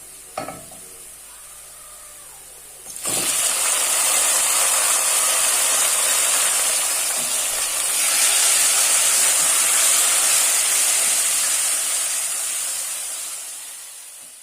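Food frying in hot oil in a cooking pot: a loud, steady sizzle that starts suddenly about three seconds in and fades out near the end. A single knock comes just before it.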